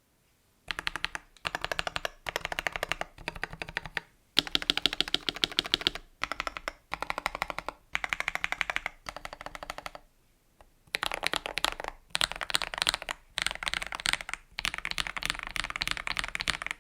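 Fast typing on a mechanical keyboard during a keycap sound test: dense runs of keystroke clicks in bursts of a second or two, separated by short pauses, with a longer pause about ten seconds in.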